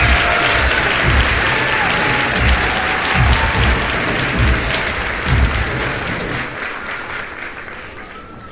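Audience applauding over music with a low beat, fading out over the last couple of seconds.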